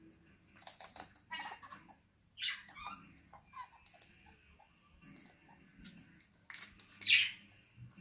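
Red-crowned kakariki parakeets making short chirps and flutters. A quick flurry comes in the first two seconds, a falling chirp follows, and a louder chirp comes near the end.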